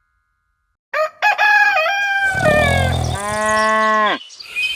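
A rooster crowing, starting about a second in, followed by a cow mooing with a long call that falls in pitch at its end.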